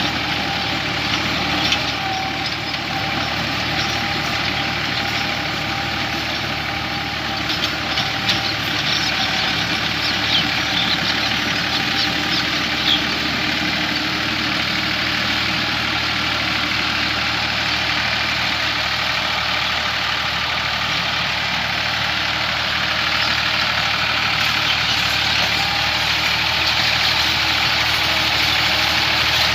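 Massey Ferguson 260 tractor's diesel engine running steadily, with a scatter of light clicks and rattles about a third of the way in.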